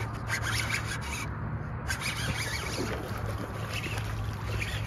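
A fishing reel being wound while a hooked bass is played in, with a hooked bass splashing at the surface near the end, over a steady rushing of wind and handling noise on the microphone.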